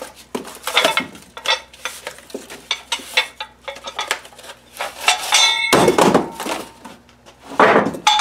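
Painted steel bars of a manual tire changer handled in their cardboard box: metal parts knocking and clinking together, with cardboard packing rustling and scraping. One clink about five seconds in rings on briefly.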